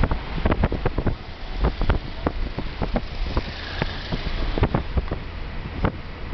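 Wind buffeting the microphone in irregular crackling gusts, over the low rumble of a car driving at road speed.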